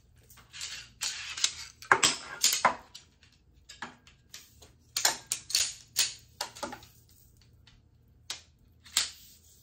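Pole sections of a folding camping cot clicking and clattering as they are unfolded and snapped together: an irregular run of sharp clacks, the loudest about two seconds in and again around five to six seconds and near the end.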